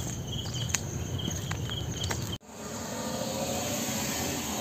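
Insects chirping in short repeated high notes over a low rumble and a few clicks; about two and a half seconds in the sound cuts off suddenly and a steady outdoor hiss follows.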